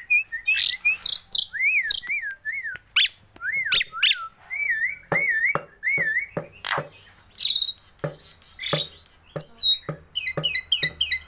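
Javan myna (jalak kebo) singing: a long run of whistled notes that loop up and down in pitch, mixed with sharp clicks and harsher calls, and a quick run of short chirps near the end.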